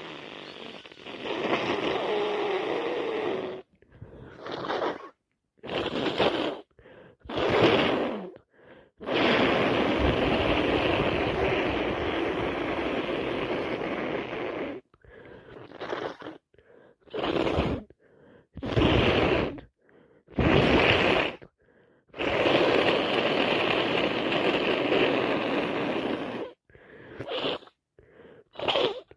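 A person with a snotty head cold blowing their nose in three long blows of several seconds each, with short sniffs between them.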